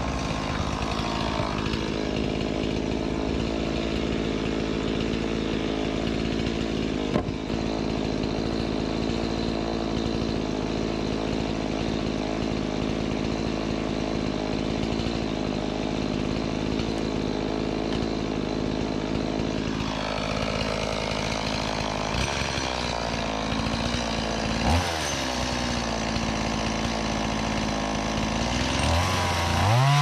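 Stihl chainsaw running and cutting through a wood block, held at a steady high speed for long stretches. The engine pitch drops about twenty seconds in, then revs up again near the end.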